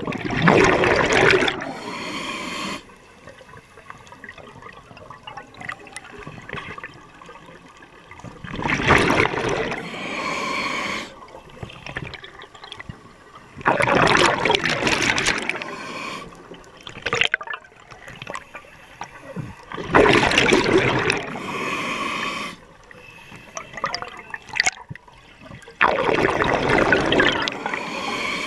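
Scuba diver breathing through a regulator underwater: a burst of exhaled bubbles rushes out of the regulator five times, each lasting two to three seconds and coming about every six seconds, with quieter stretches between them.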